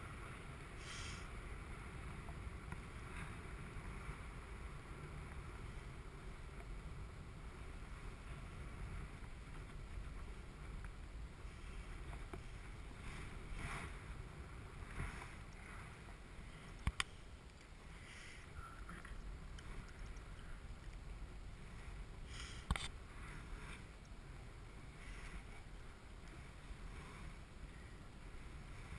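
Wind rush from the airflow past a paraglider in flight, heard on the camera's microphone as a steady low rumble, with a couple of sharp clicks partway through.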